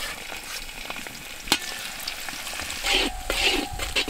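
Chopped garlic sizzling in hot vegetable oil in a large wok. From about three seconds in, a perforated metal skimmer scrapes and stirs it in a few quick strokes.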